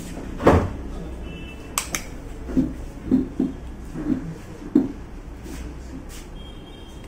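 Handling noises on a workbench: a thump about half a second in, two sharp clicks just before two seconds, then five short, soft knocks, over a steady low hum.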